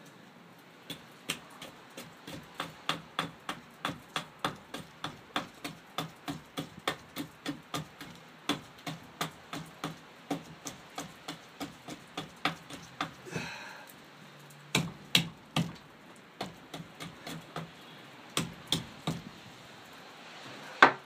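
Knife point being worked back and forth into fresh pine to bore a hole, making a steady run of short wooden clicks at about two or three a second. The clicks break off a little past halfway, then come back fewer and louder.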